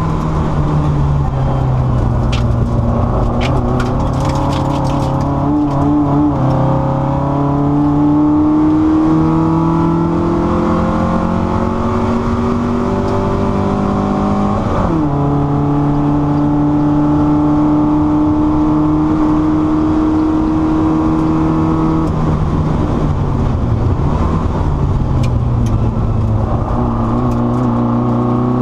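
Car engine heard from inside the cabin, driven hard: the revs climb steadily, drop sharply at a gear change about halfway through, hold level, ease off about three-quarters through and climb again near the end, over road and wind noise.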